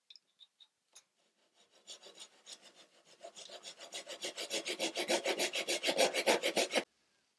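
Japanese pull saw cutting a groove into a wooden block with quick back-and-forth strokes, about five a second. The strokes start light, grow louder and faster, and stop abruptly near the end.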